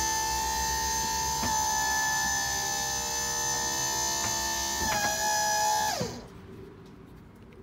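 Battery-powered electro-hydraulic tipping pump of an Agados Delta dump trailer whining steadily as it raises the bed. Its pitch sags slightly about five seconds in, then it winds down and stops about six seconds in.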